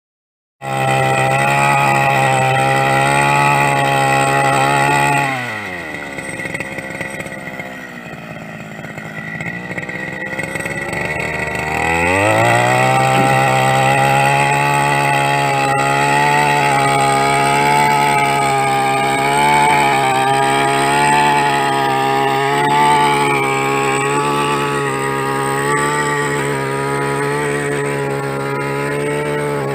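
Backpack brush cutter's small engine running at high revs while its blade attachment cuts a trench in the soil; about five seconds in it drops back to idle, and it revs back up about seven seconds later and holds high.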